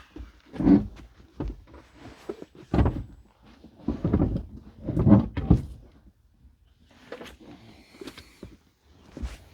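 A series of irregular knocks and thunks, with some rattling, as parts are pulled out and handled inside a pickup truck's cab; the heaviest thuds come about three to five and a half seconds in.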